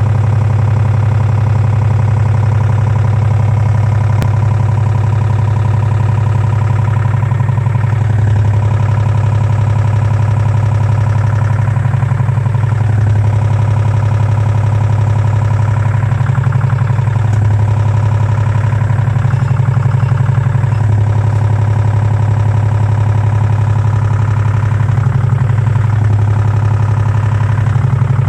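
LG washing machine spinning, with a loud, steady low hum that dips and swells every few seconds. The noise persists after a new drum and bearings, and was traced to a cracked arm of the drum's three-armed spider.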